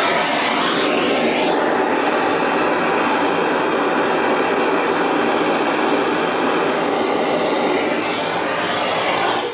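Gas blowtorch flame burning with a loud, steady hiss while heating a copper pipe elbow joint for soldering; it shuts off abruptly.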